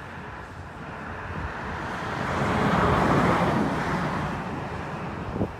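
A road vehicle passing by: tyre and engine noise swells to its loudest about three seconds in, then fades away.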